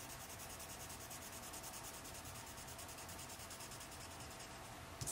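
Graphite pencil scribbling on paper in quick back-and-forth shading strokes, a faint, even scratching.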